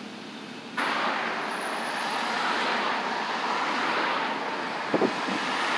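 Steady rush of road traffic noise that starts abruptly under a second in, with a couple of light knocks about five seconds in.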